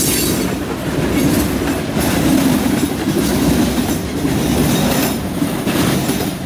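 Freight train cars, including covered hoppers, tank cars and boxcars, rolling past: a steady rolling noise with the steel wheels clattering on the rails.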